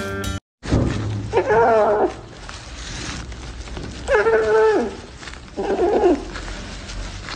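Kitten giving three drawn-out, wavering mews, each under a second long, as it gnaws on a corn cob; the second one falls in pitch at its end.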